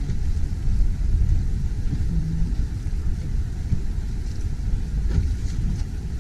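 Low, uneven rumble of motorboat traffic on a canal, heard from the bow of a gondola.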